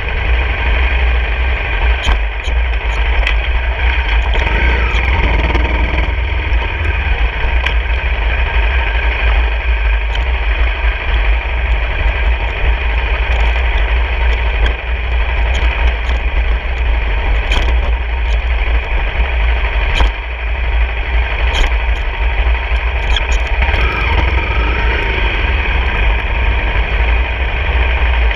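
Honda CRF250 dirt bike's single-cylinder four-stroke engine running while being ridden, under heavy, steady wind rumble on the microphone. Scattered sharp knocks come through as the bike goes over the rough road surface.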